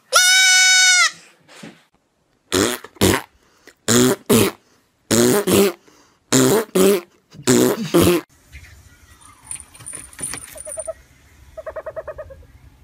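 A goat kid bleats once, a single high, even cry about a second long. Then come about five pairs of short, loud voice-like calls, and near the end a brief, quieter, fast-pulsing call.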